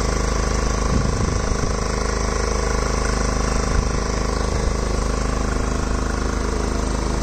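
An engine running steadily at idle, an even low hum that holds the same pitch throughout.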